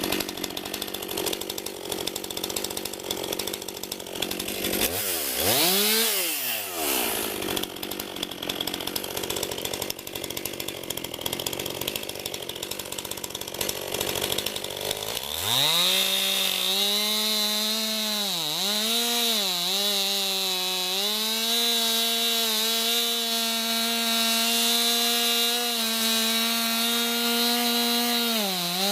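Two-stroke chainsaw running low, revved up and back down once about five seconds in, then opened up to full speed about halfway through and held there with a few brief dips in pitch as it cuts through wood.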